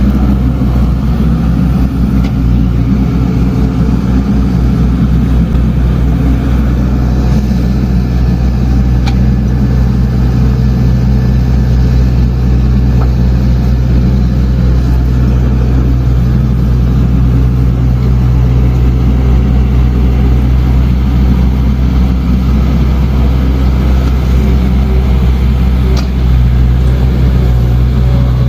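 Diesel engine of a heavy earthmoving machine running steadily and loudly with a deep, even drone, with a couple of brief sharp clicks from the machine's work.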